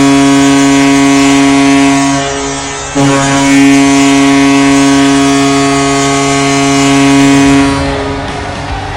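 Tampa Bay Lightning arena goal horn blasting: a loud, steady multi-tone horn cuts off about two seconds in, sounds again after a short break and holds until it fades about eight seconds in. Music begins near the end.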